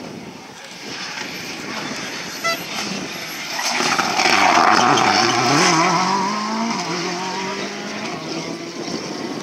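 Peugeot 307 WRC rally car's turbocharged four-cylinder engine approaching at speed. It is loudest as the car passes close about four to six seconds in, where the engine note climbs, drops once at a gear change, and then carries on as the car pulls away.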